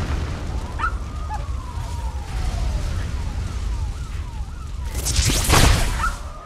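Film sound effects: a low rumble under repeated dog whines, then a loud crackling whoosh of the Flash's speed-force lightning about five seconds in.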